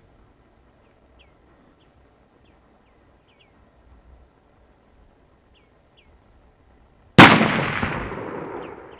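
Faint small bird chirps, then about seven seconds in a single loud rifle shot whose echo dies away over nearly two seconds.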